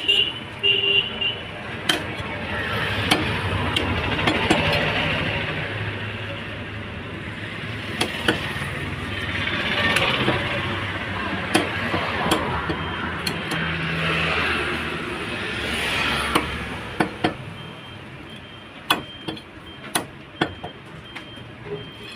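Passing road traffic rises and falls three times, with short sharp knocks of a butcher's blade chopping on a cutting block. The knocks come thicker in the last few seconds as the traffic dies down.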